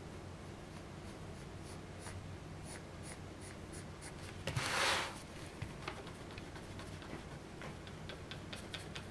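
Pencil scratching on sketchpad paper in quick short strokes, with one louder, longer scrape about halfway through.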